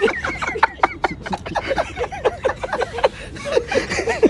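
Many people talking over each other in a crowded restaurant, a continuous babble of overlapping voices with no single clear speaker.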